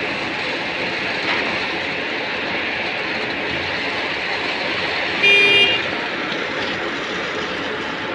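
Steady machinery noise from a concrete pour fed by a boom concrete pump. About five seconds in, a short horn toot lasting about half a second is the loudest sound.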